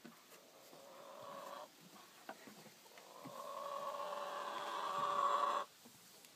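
Chicken crowing: a short first note, then after a pause a long drawn-out crow that grows louder and cuts off suddenly.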